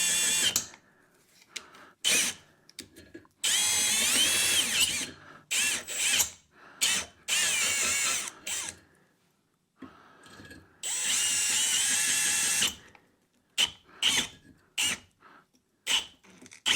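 Power drill with a step drill bit boring out the slot ends of a chainsaw guide bar, run in bursts of a second or two with a whine that rises and falls in pitch. Near the end it comes in short stop-start pulls of the trigger.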